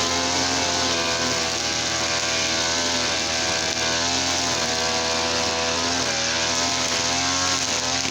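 Two-stroke TL33 brush cutter engine, running on mixed fuel, running steadily with its pitch wavering slightly up and down.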